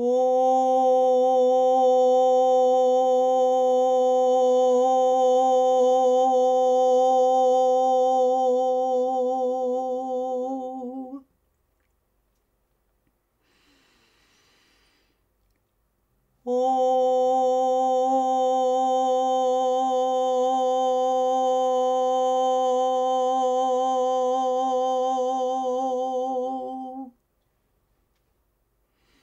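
A woman's voice toning a long, sustained 'Oh' vowel on one steady pitch with a slight waver, held twice for about eleven seconds each, with a soft breath in between.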